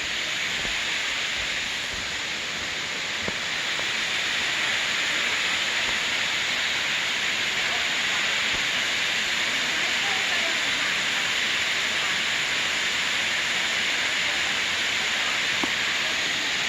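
Waterfall's steady rush of falling water, an unbroken hiss that holds at one level.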